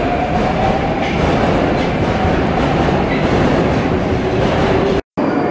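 Moscow Metro train running along the platform: a steady rumble of wheels and motors, with a faint whine that slowly falls in pitch. The sound cuts off abruptly near the end.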